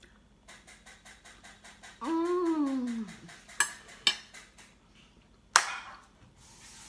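A woman hums a satisfied "mmm" that falls in pitch over about a second. Then a fork and plate click twice against a table. Near the end comes one sharp hand clap, the loudest sound.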